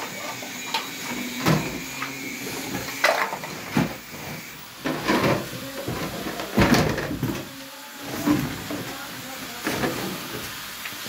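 Irregular knocks and clatter of plumbing pipe fittings being handled and sorted, the loudest about two-thirds of the way in.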